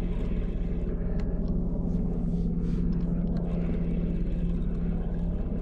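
Steady low mechanical hum of an idling engine, unchanging throughout, with a few faint clicks over it.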